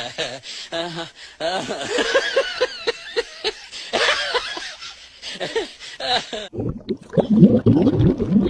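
People laughing in quick repeated bursts. About six and a half seconds in, this gives way to a lower-pitched dog vocalization.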